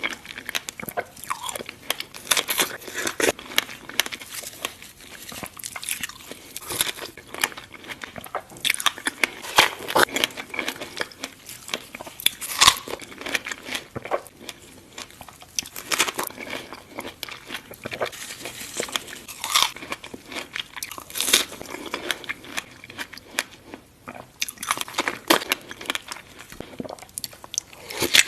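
Close-up eating sounds: a person biting and chewing crunchy food, with many irregular crisp crunches and clicks.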